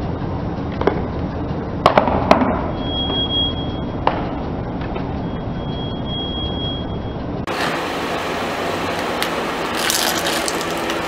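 Car tyre rolling slowly over plastic sunglasses on concrete: several sharp cracks and snaps of the frames and lenses over the car's steady low rumble, with a thin high squeak twice. After about seven and a half seconds the tyre rolls onto plastic hairbrushes and a comb, giving a denser burst of crackling.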